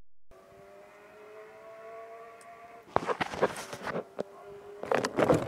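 A steady hum of several tones that rises slowly in pitch. From about three seconds in it is overlaid by knocks and rubbing from the phone being handled.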